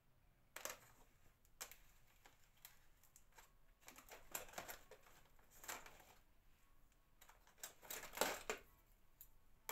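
Faint, scattered clicks and light clatter of small tools being rummaged through in a cup on a shelf.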